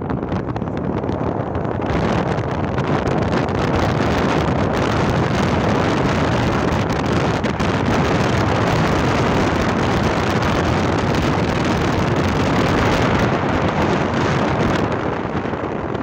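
Wind rushing over the microphone, a loud, steady rush that eases slightly near the end.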